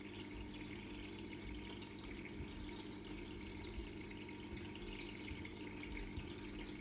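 Faint steady background hiss with a low hum underneath: quiet room tone, with only a couple of tiny ticks.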